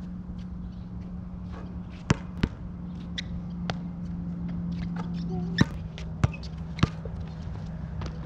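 A basketball bouncing on a hard outdoor court in sharp single bounces: two close together about two seconds in, then three more about half a second apart a little past the middle, over a steady low hum.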